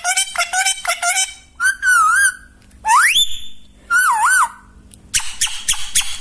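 Alexandrine parakeet calling: a fast run of sharp, repeated calls, then three drawn-out whistles, the first wavering, the second gliding upward, the third wavering. The rapid calls start again about a second before the end.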